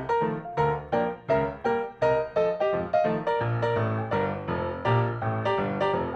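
Background piano music: a steady run of struck notes, about three or four a second.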